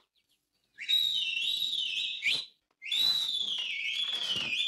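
Two long, high whistles, each sweeping up and then wavering up and down in pitch, with a short break between them. It is a whistled signal rousing the robber band.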